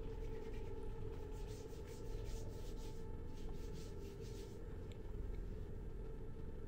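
Faint rubbing of hands over bare skin, a run of soft strokes that stops about four and a half seconds in, over a low steady hum.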